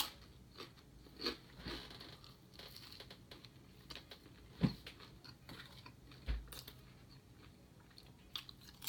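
Close-up chewing of a mouthful of sandwich: irregular soft crunches and wet mouth clicks, a few of them louder.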